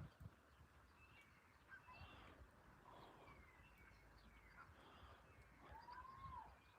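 Faint wild bird calls: scattered short chirps and whistles, with one longer arching whistle about six seconds in, over low rumbling thumps.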